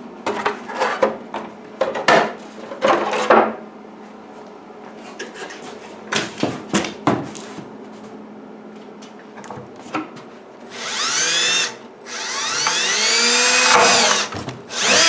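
Power drill with a 3/16-inch bit boring a mounting hole through fiberglass motorcycle tail-section bodywork, its motor pitch rising and falling as the bit bites, in a short burst then a longer run in the last few seconds. Before that, a few clicks and knocks.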